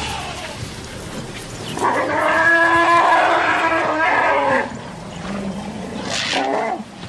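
African elephant trumpeting: one long, loud call lasting nearly three seconds from about two seconds in, then a shorter call near the end. It is a threat call, driving off African wild dogs that have come near the elephants' calves.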